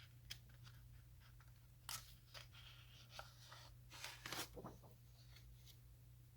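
Near silence over a low steady hum, broken by a few faint rustles and clicks of handling, the loudest cluster about four seconds in.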